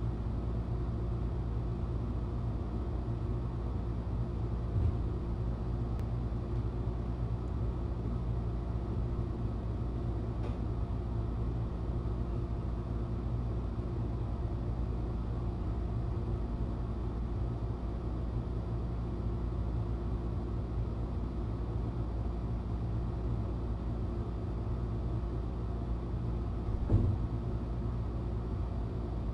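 Steady low hum, with a soft knock about five seconds in and another near the end.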